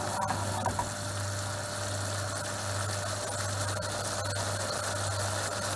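Tomato sauce bubbling at a boil in a frying pan on a gas hob, over a steady low hum.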